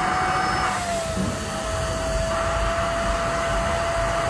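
Shimono SVC1015 handheld vacuum cleaner's 600-watt motor running steadily with a constant whine, under load as its suction draws a column of water up a tall tube. The whine drops slightly in pitch about a second in.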